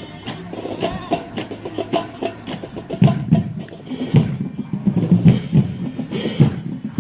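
A marching band drumline playing a marching cadence: sharp drum strokes about twice a second, with the low drums coming in heavier from about three seconds in.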